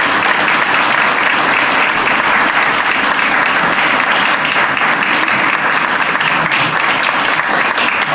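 Audience applauding: steady, sustained hand clapping from a seated room of people.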